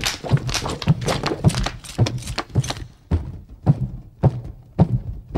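A run of dull thunks or knocks, about two a second and unevenly spaced, each with a low thud.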